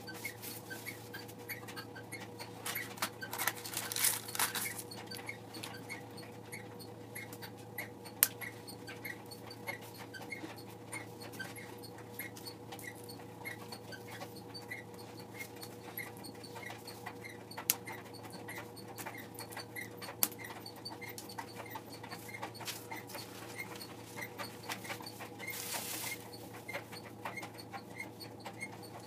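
Paper plan sheets rustling and sliding over a foam board, with a few single sharp clicks as thumbtacks are pressed through the paper into the foam. Underneath runs a steady electrical hum and a faint regular ticking.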